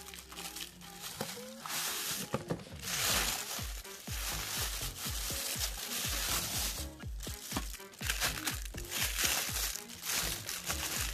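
Tissue paper and clear plastic wrapping crinkling in repeated bursts as a boxed item is pulled out and unwrapped, over background music with a steady low beat.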